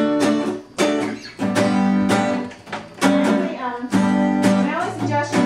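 Acoustic guitar strummed, repeating a chord pattern in a rhythmic strum.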